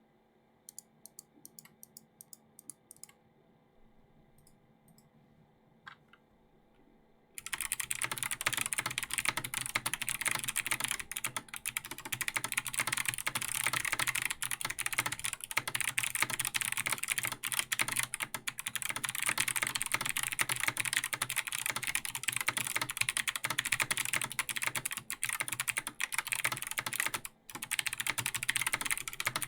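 Typing on a Logitech G Pro X mechanical keyboard with Kailh Box Jade clicky switches and ABS keycaps, each keystroke a crisp, clean click. Only a few faint scattered keystrokes come at first; fast continuous typing starts about seven seconds in, with a brief stop near the end.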